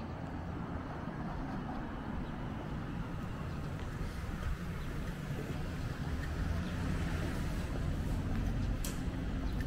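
City street ambience: a steady low rumble of distant traffic, with a single sharp click near the end.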